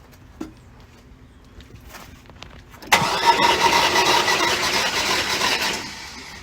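An engine is cranked over on its starter for about three seconds, beginning about three seconds in, with a compression gauge fitted in cylinder one. The gauge reads a low 50.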